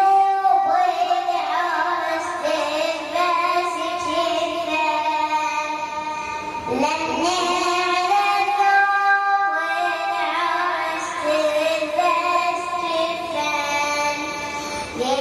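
A young boy's voice singing a Shia mourning lament (nawha), drawing out long held notes that slide and waver in pitch.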